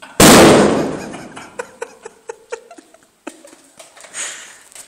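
A single very loud bang about a quarter second in, echoing in a concrete room and dying away over about a second, followed by a scatter of sharp clicks and knocks and a short hiss near the end.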